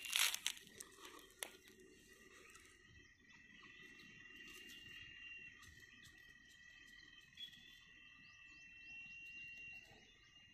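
A brief crackling crunch of dry grass and leaves in the first half second. After it, a faint background of steady high tones with a few tiny faint chirps near the end.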